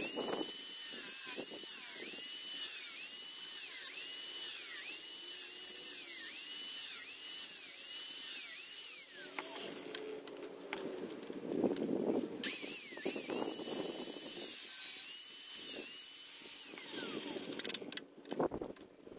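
Angle grinder running against the steel frame, its high whine dipping in pitch and recovering over and over as it is pressed on and eased off. About halfway through it winds down; it starts up again a few seconds later and winds down near the end, followed by a few knocks.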